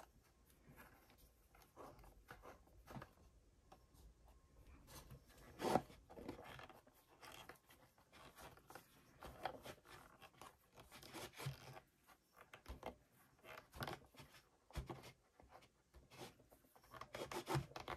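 Faint handling noises of a wooden tray being pressed, held and shifted: irregular scraping and rubbing with scattered soft clicks, and one louder knock about six seconds in.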